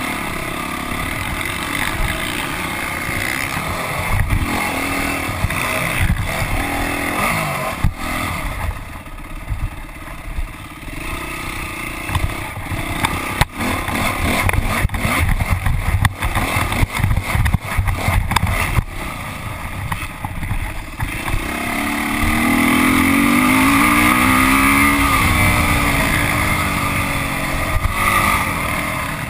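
Motocross dirt bike engine revving hard under racing, its pitch rising and falling as the throttle is worked, heard from a camera mounted on the bike. Sharp clattering knocks come through in the middle stretch, and the loudest, longest revs come near the end.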